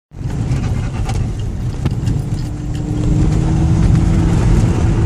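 Tuned Audi A6 2.5 TDI quattro V6 turbodiesel running, starting suddenly and getting louder about three seconds in, with scattered sharp ticks over it.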